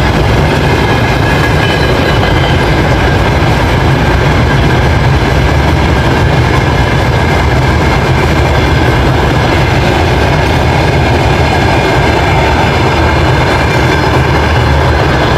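Train running on the rails close by: a loud, steady rumble of wheels and rolling stock that holds even throughout.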